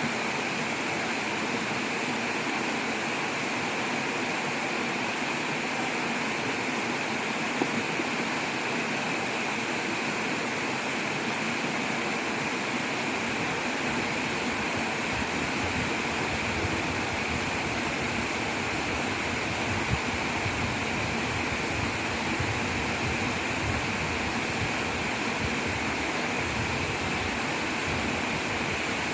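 Mountain stream's water rushing steadily and evenly, with a faint click or two.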